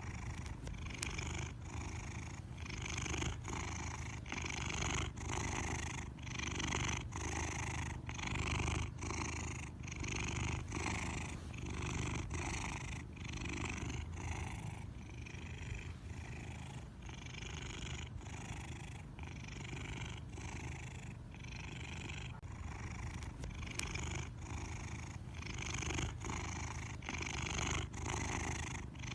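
A sleeping pet snoring: steady, rhythmic rasping breaths, roughly one a second.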